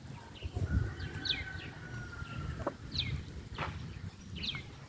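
Birds calling: short, high, falling chirps repeating about once a second, with one long held call from about one second in until nearly three seconds.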